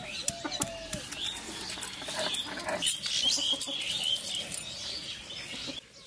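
Chickens clucking and small birds chirping around a yard, with a few sharp knocks in the first second from a stone pestle pounding mustard leaves on a flat grinding stone.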